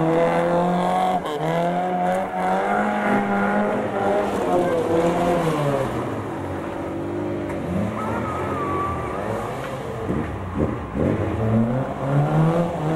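Classic saloon rally car's engine revving hard, its pitch rising, holding and dropping again and again as the car is driven through a cone course, with a brief tyre squeal about eight seconds in.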